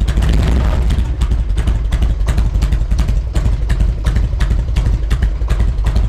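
Harley-Davidson Road King's Twin Cam 88 V-twin running steadily on its first start after an EFI-to-carburetor conversion, fed by an S&S Super E carburetor with the choke still on.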